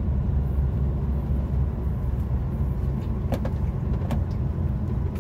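Heavy truck's diesel engine running steadily under way, heard from inside the cab as a low drone, with a couple of faint clicks about three and four seconds in.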